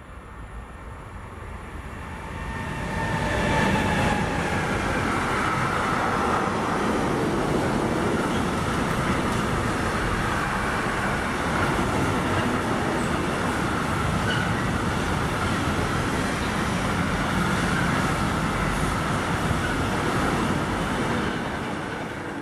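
Freight train passing close by, hauled by an SBB Cargo class 482 (Bombardier TRAXX) electric locomotive. The noise builds over the first few seconds as the locomotive approaches and passes. Then comes a long, steady rumble of wheels on rail as the tank-container wagons roll by, easing off near the end.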